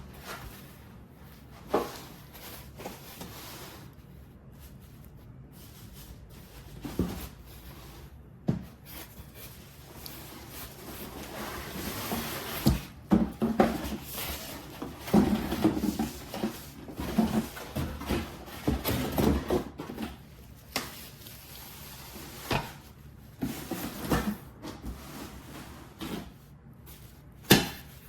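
Irregular knocks, clicks and rubbing of objects being handled, with a cluster of busier clatter in the middle and a sharp knock near the end.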